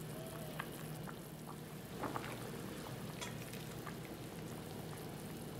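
Chicken broth simmering in a steel pot while a ladle scoops broth out of it, with a few small splashes, drips and light taps over a steady bubbling hiss.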